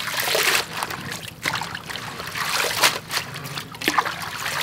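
Water splashing and trickling in a stainless steel bowl as spinach leaves are rinsed by hand under running water. The splashes come unevenly, with a few sharper ones.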